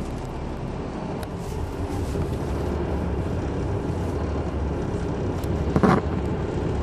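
A Neoplan AN459 articulated bus's Caterpillar C9 ACERT diesel engine runs with a steady low hum, heard from inside the passenger cabin. The hum grows a little louder about two seconds in. A short, loud thump comes near the end.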